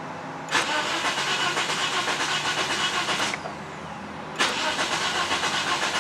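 The 1.8-litre four-cylinder engine of a 2009 Toyota Corolla being cranked by the starter with the fuel pump disabled, so it turns over without firing, in two long cranks a second apart with a quick pulsing rhythm. The mechanic judges the cranking sound not right, a sign of bad compression in one or more cylinders.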